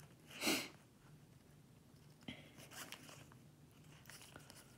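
Stiff game cards being slid one past another in the hands: a quick crisp swipe about half a second in, then faint soft rustles and small ticks as the cards are moved along.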